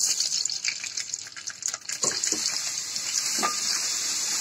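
Raw pulao rice sizzling as it fries in hot oil in a metal pot, a steady hiss, with a wooden spoon scraping and stirring through the grains in short clicks, most of them in the first two seconds.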